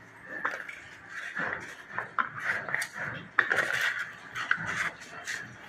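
Plastic bottle knocking and scraping on a terrazzo floor as a Shih Tzu pushes it about with her nose and paws, in an irregular run of clicks and short scrapes.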